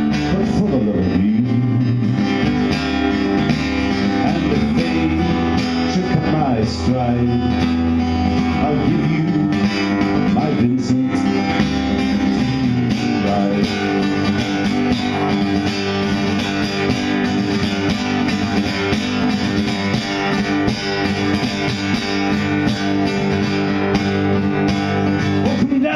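Acoustic guitar playing steadily through a folk song, with a man's singing voice in parts, mostly in the first several seconds, and a stretch of guitar alone.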